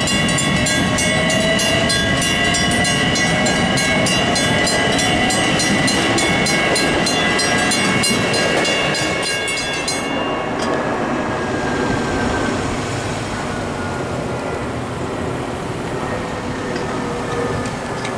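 Two Western-Cape/WCH mechanical crossing bells striking rapidly and evenly over the rumble and wheel noise of an LIRR M7 electric train passing the crossing. The bells cut off suddenly about ten seconds in, the sign that the gates have started to rise, and the train's rumble fades away under passing traffic.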